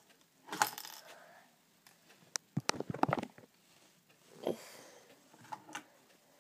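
Handling noise from a Bachmann Thomas toy locomotive being put back together and set on a wooden table. There are scattered clicks, a quick cluster of knocks about two and a half to three seconds in, and breathy rustles near the microphone.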